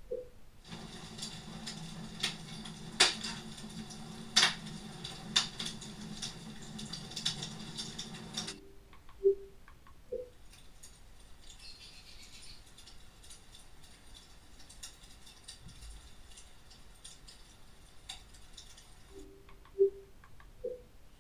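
Crackling log-fire ambience from the TV's CineMagraph Fireplace living photo, with sharp pops over a low rumble, which stops about eight and a half seconds in. Short menu navigation beeps follow as the selection moves on, then a fainter crackly ambience, and two more beeps near the end.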